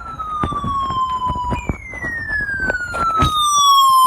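A siren-like tone falling in pitch twice, the second fall longer than the first and cut off abruptly, over steady crackling clicks.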